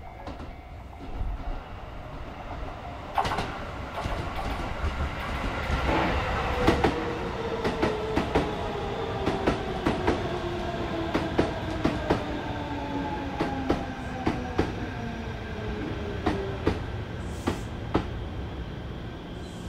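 Shin-Keisei 8900 series electric train running slowly, its motor whine falling steadily in pitch as it slows. Wheels click over rail joints throughout.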